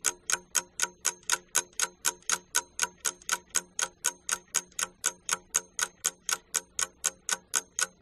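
Ticking-clock sound effect, about four even ticks a second, marking thinking time after a question has been put to the pupils.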